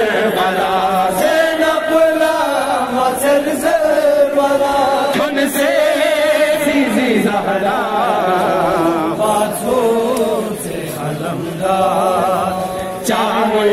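Men chanting a Muharram noha, a mourning elegy, together into handheld microphones in long, wavering sung lines.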